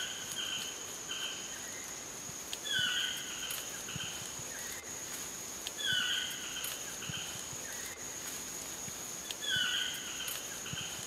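Tropical rainforest ambience: insects keep up a steady high-pitched drone, and a bird gives a short call of several falling notes, repeated four times about every three seconds.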